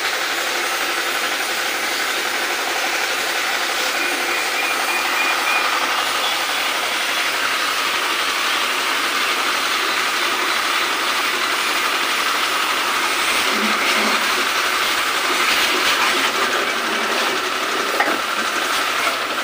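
Pressure washer running steadily, its jet spraying water onto a window-type air conditioner's chassis and coil: an even, unbroken hiss over the hum of the pump.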